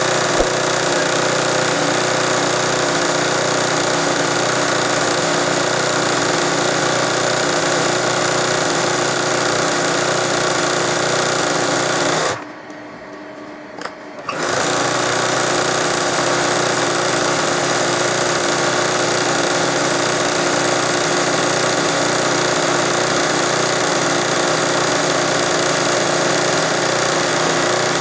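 Sewing machine running steadily as it stitches a freehand (free-motion) embroidery design into hoop-stretched fabric. It stops for about two seconds midway, with a small click, then runs again.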